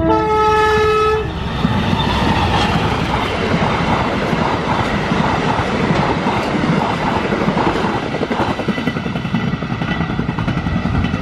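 A train horn sounds once for about a second, then a train passes close by, with loud, steady wheel-on-rail noise for the rest of the time.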